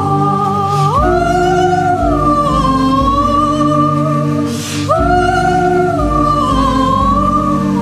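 Traditional Andean ceremonial music: a high, sustained melody that swoops up into long held notes twice, over low held accompaniment tones.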